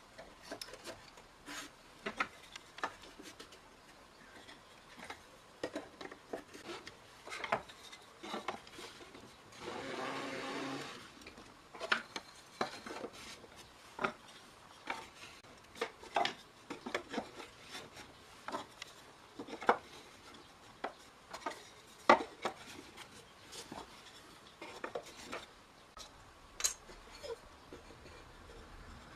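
Wooden barrel staves of oak and mulberry clicking and knocking against each other and against a metal hoop as they are fitted into the ring one at a time. The knocks come irregularly, and about a third of the way in there is a scraping sound of wood rubbing for about a second.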